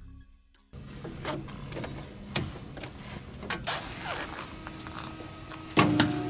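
Thick rubber-jacketed power cable being handled and pulled from its coil on an aircraft ground power cart: rustling and scattered knocks and clicks, with a louder clatter near the end.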